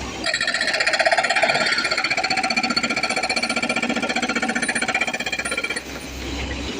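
Excavator-mounted hydraulic breaker hammering in a rapid, steady string of blows. It starts just after the beginning and stops about a second before the end.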